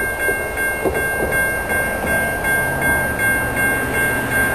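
Railroad grade-crossing warning bell ringing: a steady, high, clanging tone that switches on suddenly and pulses about two to three times a second as the crossing signals activate for an approaching train.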